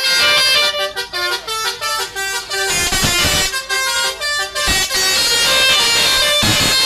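Basuri telolet horn, a multi-note air horn, playing a tune of quickly changing notes without a break, loud. There are a couple of low thumps midway.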